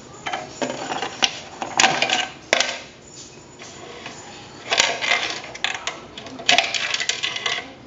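Radio-controlled tracked Unimog model driving in three short spurts, its drive and plastic tracks clattering.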